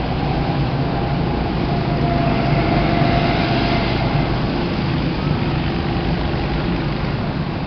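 Small go-kart engines running steadily, their sound swelling a little between about two and four seconds in.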